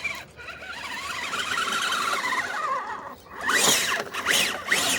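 RC crawler truck's electric motor and gearbox whining under throttle, the pitch wavering, then rising and falling sharply several times in the last second and a half as it is pushed harder while trying to climb a steep rock obstacle.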